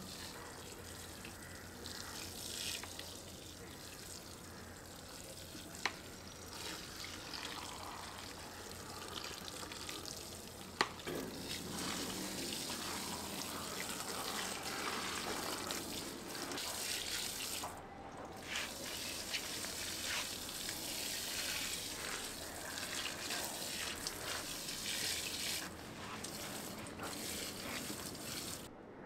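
Water running from a kitchen tap into a sink, a steady hiss with a few sharp knocks of things being handled. It drops out briefly a little past halfway.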